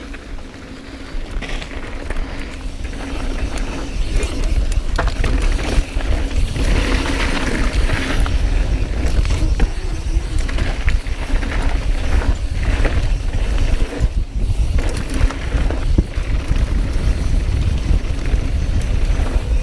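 Mountain bike riding down a rough trail: wind rumbling on the microphone, with tyres and bike parts rattling and clicking over the ground.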